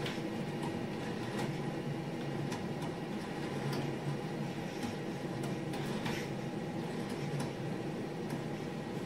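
Steady machine hum of a PR2 robot running while its arms tilt a plank, with a low drone and light clicks and knocks scattered every second or so.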